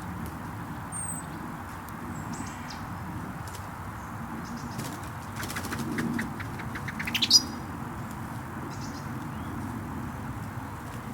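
Green woodpecker's wings fluttering as it wallows in mud: a quick run of soft flaps speeding up over a couple of seconds and ending in one sharp, louder flap about seven seconds in. A few faint high bird chirps come early, over a steady low background rumble.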